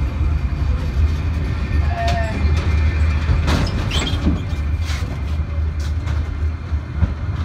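Tram running along the track, heard from inside the rear of the car: a steady low rumble with a brief wheel squeal about two seconds in and a few knocks over the rails between about three and five seconds in.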